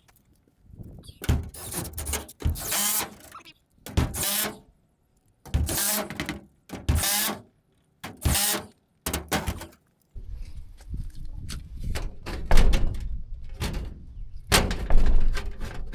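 Hands-on repair work on a wooden barn door: a run of six short, sharp bursts of noise about a second apart, then a steadier low rumble with two sharp knocks in the last few seconds.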